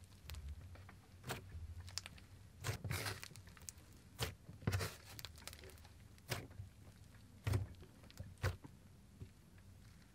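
Hands squishing, folding and poking a thick slime mixed with a lot of clay, giving irregular sticky clicks and pops, about eight sharp ones, with a short crackly stretch a few seconds in.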